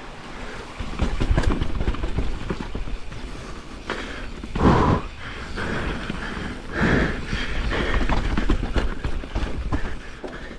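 Pivot Firebird enduro mountain bike descending a rough trail: tyres rumbling over dirt and roots, with the frame and drivetrain rattling and knocking. Two louder scrubbing swells come about halfway through and again about two-thirds in.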